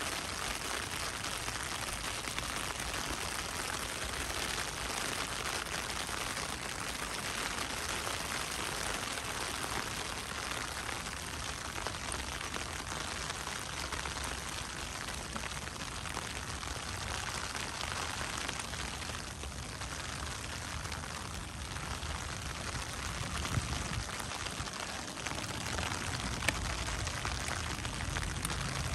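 Steady rain falling, an even hiss of drops, with a couple of brief ticks near the end.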